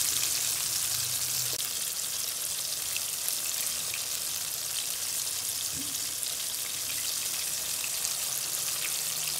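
Battered chicken pieces deep-frying in hot ghee in a metal pan: a steady sizzle with fine crackling from the bubbling fat.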